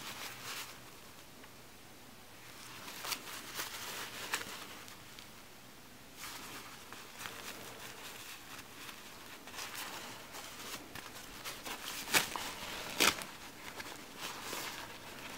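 Disposable diapers (Pampers Pure and Pampers Baby-Dry) rustling and crinkling as they are handled, unfolded and flexed by hand, with a few sharper crackles near the end.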